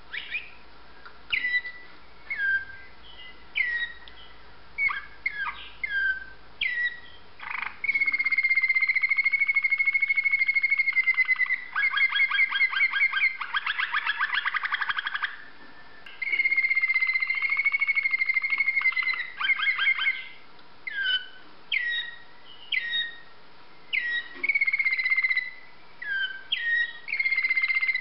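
Waterslager song canary singing: short separate notes for the first several seconds, then long held notes and fast rolling trills through the middle, then short separate notes again near the end.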